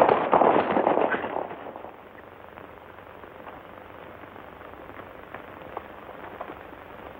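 Horses galloping, a loud, dense clatter of hoofbeats that fades out after about a second and a half, leaving a low background with a few faint knocks.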